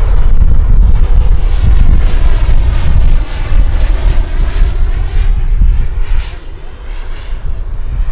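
Twin Schübeler electric ducted fans of a large RC Boeing 777-9X model airliner in flight: a high steady whine that falls slowly in pitch, over heavy gusting wind rumble on the microphone.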